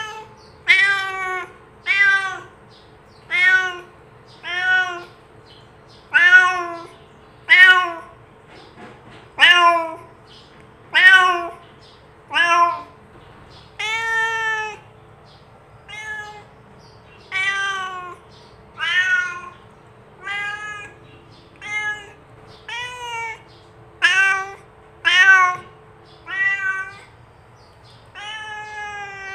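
Domestic cat meowing over and over, more than twenty separate meows about a second apart, each rising then falling in pitch, a few drawn out longer.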